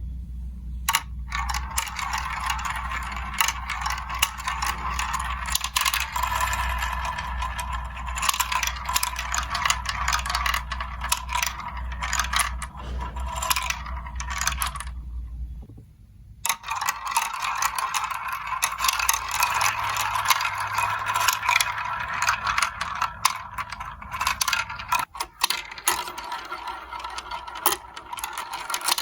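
Marbles rolling and clattering through a plastic building-block marble run, a dense stream of small clicks and rattles. There is a brief lull just past halfway, where a low hum underneath stops.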